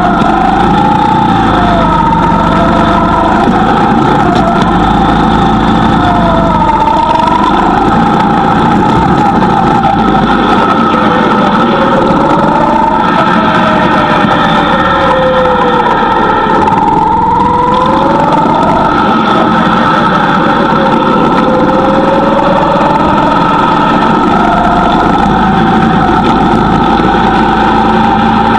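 Go-kart engine running hard and continuously, its pitch rising and falling again and again as it speeds up and slows down.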